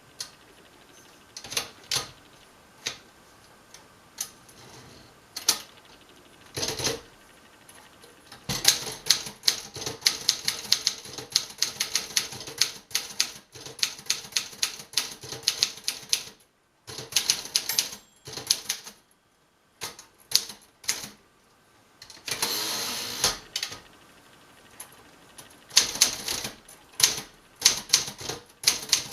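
Keys of a 1956 Remington Letter-Riter manual portable typewriter being typed: a few slow keystrokes at first, then runs of rapid typing with short pauses, and a longer rasping sound about two-thirds of the way through.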